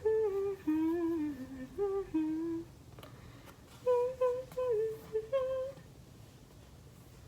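A girl humming a tune in held, stepping notes: one phrase ends about two and a half seconds in, and a second short phrase runs from about four to six seconds in.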